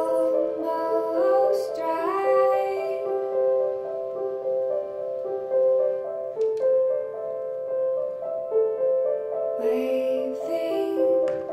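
Piano music with a repeating figure of notes, and a female voice singing a short rising phrase about a second in and again near the end.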